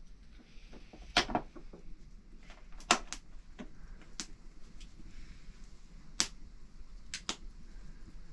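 Irregular sharp clicks and knocks, about eight over several seconds, the loudest about a second in and again near three seconds.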